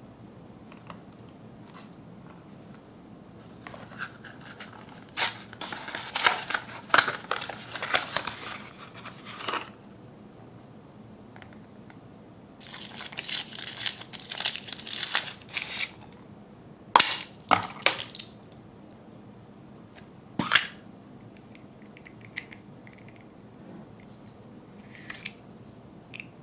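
Handling of candy packaging: a long stretch of crinkling and tearing as the cardboard box is opened, then a dense crinkling as the foil wrapper is peeled off the chocolate egg. This is followed by a few sharp separate cracks and clicks as the chocolate shell is broken and the plastic toy capsule is opened.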